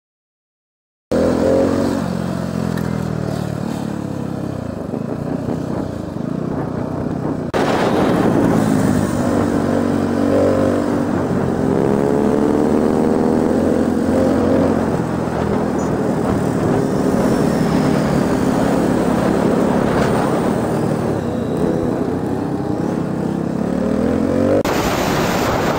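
Motorcycle engines running while riding, heard from the rider's onboard camera, with wind rushing over the microphone. The engine pitch rises and falls with the throttle. The sound cuts in about a second in and jumps abruptly in loudness about a third of the way through.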